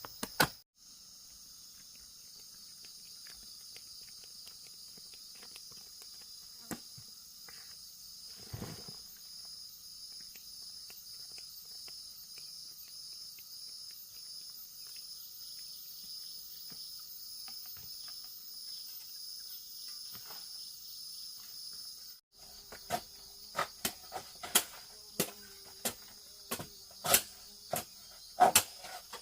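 Steady high chorus of trilling insects. About two-thirds of the way through, a run of sharp, irregular knocks sets in over it.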